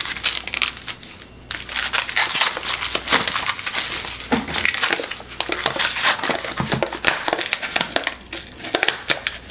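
Clear plastic wrapping being peeled and crumpled off an instant noodle cup: a run of crinkling and crackling, with a short lull about a second in.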